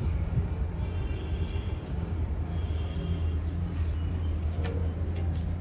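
A large engine idling, a steady low drone, with faint high bird chirps now and then.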